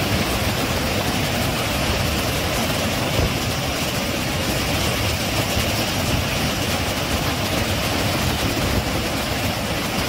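Charpa Falls in full monsoon flow: a loud, steady rush of heavy falling water.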